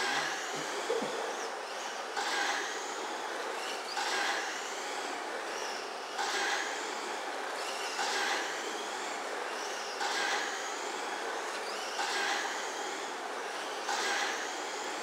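1/10-scale RC racing trucks running laps on a dirt oval: their motors whine and tyres hiss on the dirt, swelling about every two seconds as the trucks power past and fading between passes.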